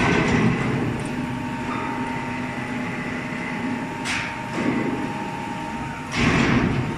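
Foundry machinery running: a steady rumble with a steady high hum, broken by two short bursts of hiss about four and six seconds in.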